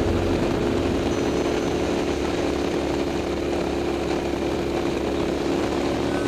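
KTM 990 SMT's V-twin engine running through a LeoVince aftermarket exhaust, holding a steady engine speed with no revving.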